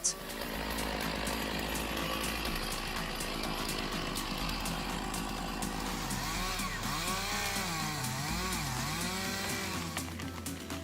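Gasoline chainsaw running and cutting into a tree trunk, a steady buzzing saw, with background music underneath.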